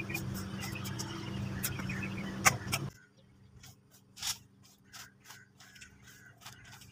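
Plastic fan rake scraping through cut grass in short, quick strokes, about two or three a second. A steady low hum lies under the first three seconds and cuts off suddenly.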